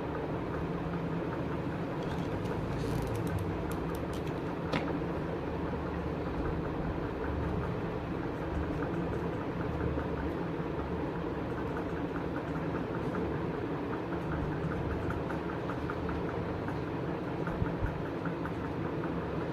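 A steady low hum with a rumble underneath, and a few light clicks about three and five seconds in.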